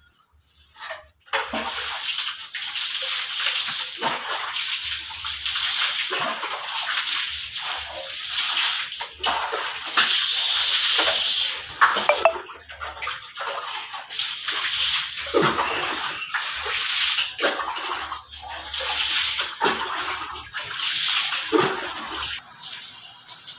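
Water running and splashing over a soapy dog's coat and a concrete floor during a dog bath, starting abruptly about a second in and going on in uneven surges.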